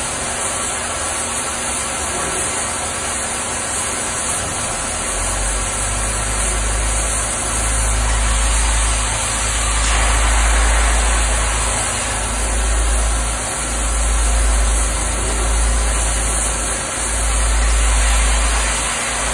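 Peddinghaus ABCM1250 structural-steel plasma coping machine running as it cuts a steel channel: a steady hiss and hum. A heavy low rumble swells and drops back several times.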